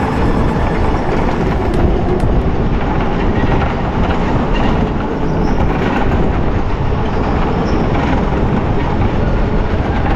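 Electric go-kart driving on the track: a loud, steady rolling rumble of tyres and chassis with a few faint clicks.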